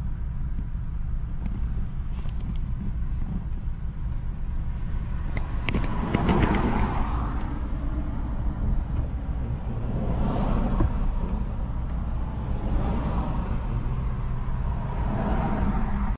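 Car driving in city traffic, heard from inside the cabin: a steady low engine and road rumble, with louder swells of traffic noise about six, ten and fifteen seconds in.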